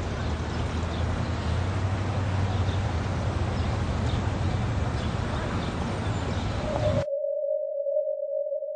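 Dense noisy rumble with a low hum underneath. It cuts off abruptly about seven seconds in and is replaced by a single steady beep-like tone.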